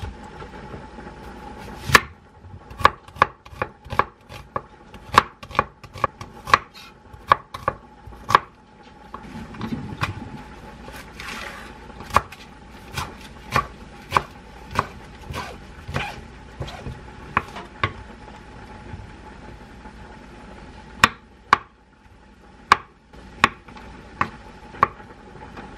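Kitchen knife chopping vegetables (perilla leaves and mushrooms) on a wooden cutting board: a series of sharp knocks in runs, with short pauses between them.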